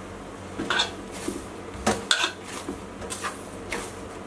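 Stainless steel plate knocking and clinking in a series of short, irregular strikes as a ball of kneaded wheat dough is pressed, lifted and folded in it.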